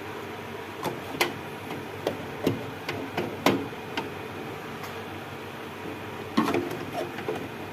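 The plastic mixing bowls of a coffee vending machine being handled and seated by hand give a series of sharp clicks and knocks during the first four seconds and again near the end, over a steady hum.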